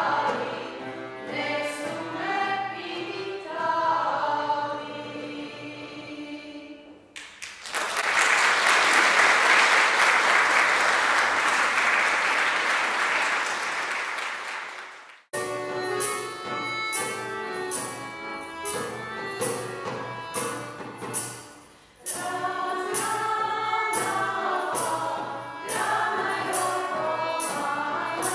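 A Serbian women's folk vocal group singing in harmony, with accordion accompaniment; the song ends about seven seconds in. The audience applauds for about eight seconds, then a new song starts with a steady hand-drum beat, roughly three strokes every two seconds, under the women's voices.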